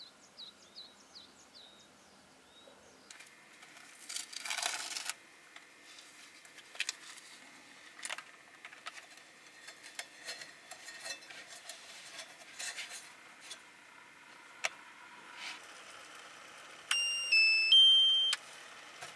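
Paper rustling, with scattered light clicks, as a drip-coffee bag is handled and hung on a metal mug. Near the end, an electric gooseneck kettle's base plays a short chime of about four electronic notes stepping in pitch, the loudest sound. A few bird chirps are heard at the very start.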